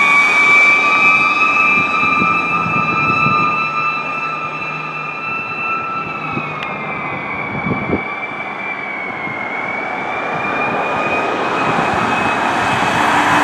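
Fire rescue truck's siren holding one steady high tone, dipping slightly in pitch about six seconds in and growing a little fainter as the truck pulls away. Traffic noise rises near the end.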